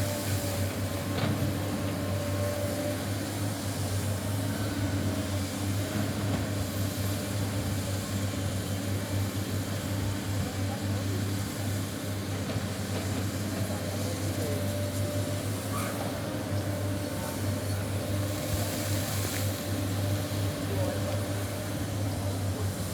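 Sany excavator's diesel engine running steadily: an even, low drone with a faint steady whine above it.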